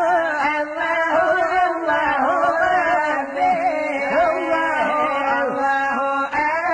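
Background music: an Arabic devotional song praising the Prophet, carrying a drawn-out melodic line without clear words over a steady held low note.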